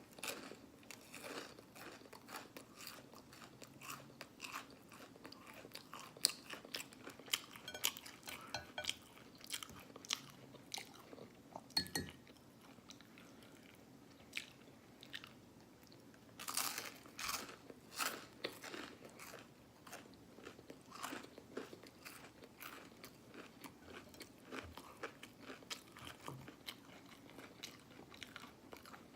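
Close-up mouth sounds of someone eating Eggo cinnamon waffles: chewing, soft crunching and wet lip smacking in a steady run of short clicks, busier about 17 seconds in.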